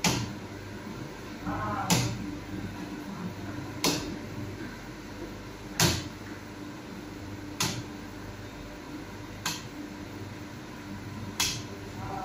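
Muffin batter being scooped by gloved hand into paper cups on a metal baking tray, with a sharp knock roughly every two seconds, seven in all, as each portion is set down. A steady low hum runs underneath.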